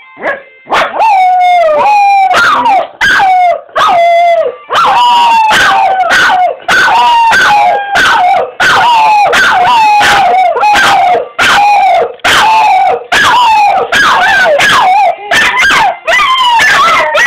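Cocker spaniels howling in a long run of repeated howls, each about half a second to a second long, mostly falling in pitch with a wavering end. The howling is set off by the telephone ringing.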